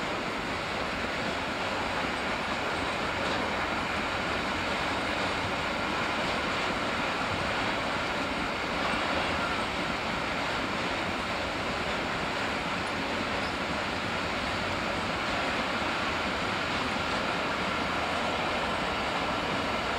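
Freight train of DB Schenker hopper wagons rolling past: a steady rolling noise with a faint high tone running through it and no separate wheel clacks.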